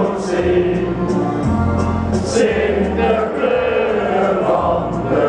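A stadium crowd of football supporters singing a chant together, many voices at once.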